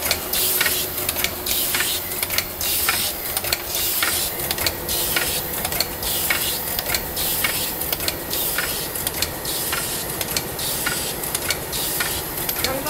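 NF-80 plastic tube filling and sealing machine running: a quick, uneven run of short air hisses, two or three a second, from its pneumatic actuators, over a steady mechanical hum.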